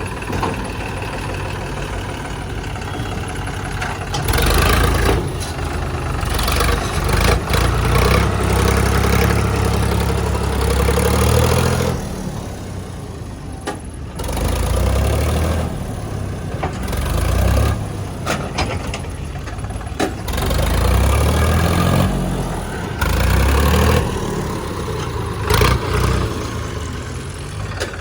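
Diesel engine of a JCB 3DX backhoe loader working, revving up in repeated bursts of a few seconds and dropping back towards idle between them.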